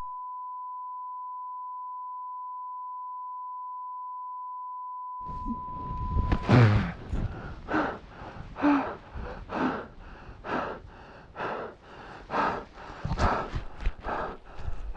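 A single steady pure tone, with no other sound, for about the first six and a half seconds, then heavy, ragged gasping breaths, about one a second, from a skier just caught and carried by an avalanche.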